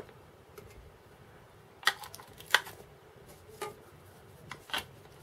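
AA batteries being pressed into the plastic battery compartment of a Garrett ACE 250 metal detector's control box: about four sharp clicks, roughly a second apart, with a few fainter taps.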